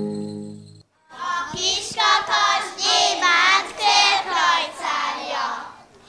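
A held chord from a string band with double bass fades out within the first second. After a brief gap, a few children sing a folk song without accompaniment, in wavering phrases.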